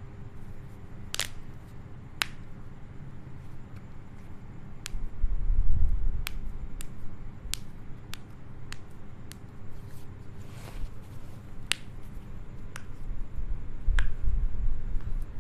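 Joints cracking and popping under manipulation: about a dozen sharp single cracks at irregular intervals, with two spells of low rumbling from body movement, one about five seconds in and one near the end.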